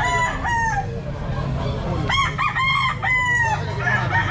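Gamecocks crowing: one crow at the start, then overlapping crows from about two seconds in.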